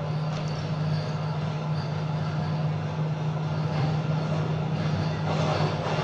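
Steady low hum under a rushing noise, a vehicle-like rumble played over the stage show's sound system. It grows a little fuller near the end.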